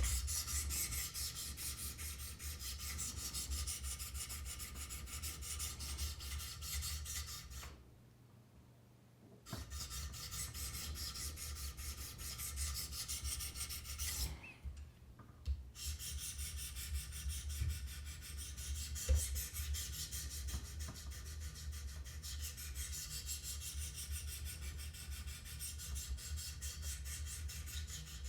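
400-grit diamond stones of a Wicked Edge guided sharpener stroking up and down the CPM-M4 steel edge of a folding knife blade, making a steady rasping scrape. The strokes pause for about a second and a half about eight seconds in, and briefly again around fourteen seconds.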